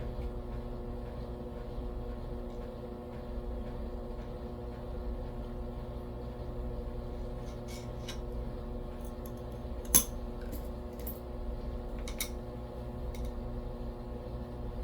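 Nickels clicking and clinking as they are handled and set down: a few sharp metallic clicks in the second half, the loudest about ten seconds in, over a steady low hum.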